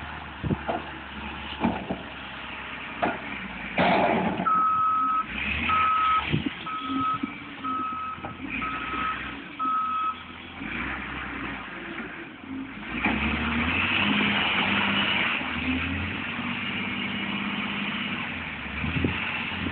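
Front-end loader's backup alarm beeping six times, evenly spaced, over its engine as it reverses. About thirteen seconds in, the engine gets louder and runs on steadily. A few sharp knocks come in the first seconds.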